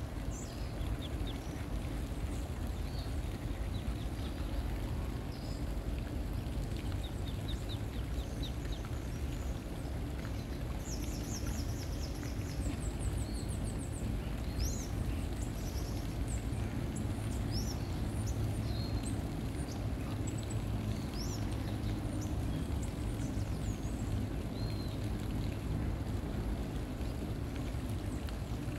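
Pond-side ambience: a steady low rumble with small birds chirping high above it, most busily around the middle.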